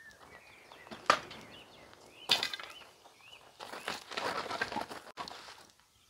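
Pieces of wood set down on a wooden chopping stump: two sharp knocks about a second apart, the first the loudest, then a second or so of scraping and rustling as the wood is shuffled into place.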